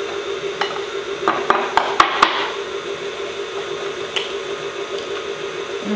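Electric stand mixer running steadily, beating butter and sugar, under a run of sharp taps and clinks about half a second to two seconds in, with one more near four seconds: an egg being knocked against a ceramic mug to crack it and a whisk stirring flour in a glass bowl.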